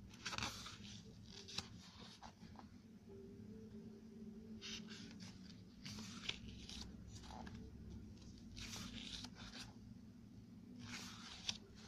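Pages of a photobook being turned by hand: several short papery swishes and rustles, faint.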